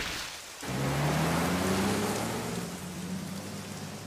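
Steady rain falling, a cartoon rain effect, with a low held tone underneath from about a second in.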